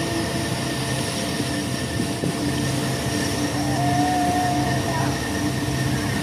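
Electronic drone soundscape: several steady humming tones layered over a wide, even hiss, with a brighter held tone for about a second a little past the middle.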